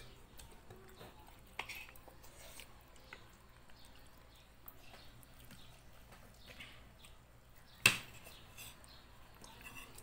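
Metal spoons clinking now and then against ceramic plates during a meal, mostly faint, with one clink about a second and a half in and a sharper, louder one near the end.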